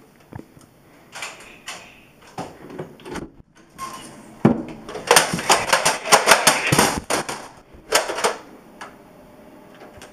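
Clatter of sharp clicks and knocks, sparse at first, then a dense, loud run from about five to seven and a half seconds in and one more burst about a second later.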